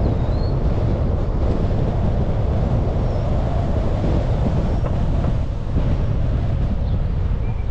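Steady low rumble of wind buffeting the microphone, mixed with road noise from a slowly driven car.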